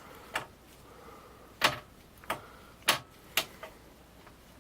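About six sharp, irregularly spaced clicks and taps from handling the rod and glue during the repair.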